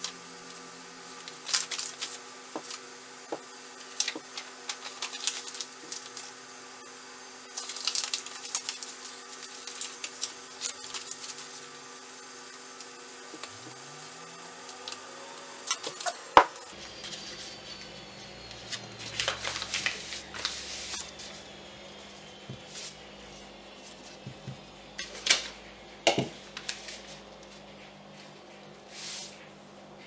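Kraft paper crinkling and rustling in repeated bursts as it is folded over the mouths of glass jars and tied down with twine. A single sharp knock comes about halfway through and a couple of lighter clicks come later, as the jars are moved on the counter.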